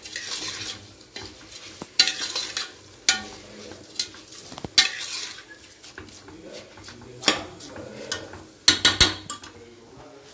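Steel spatula stirring rice and tomato masala in a stainless steel pressure cooker, scraping against the pot walls and base every second or two, with a quick run of scrapes near the end. A soft sizzle from the hot masala runs underneath.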